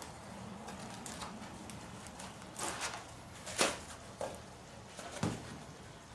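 Handling noises: a few light clicks and knocks, with a duller thump about five seconds in.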